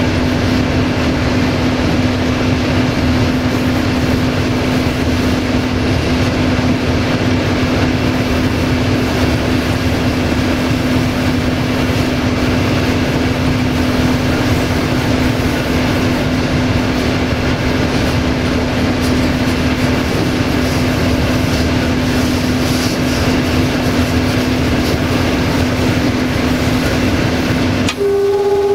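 Cab interior sound of an LDE2100 (060-DA) diesel-electric locomotive's Sulzer diesel engine running steadily under power as the train rolls along the track, with a constant drone. Right at the end a short horn note begins.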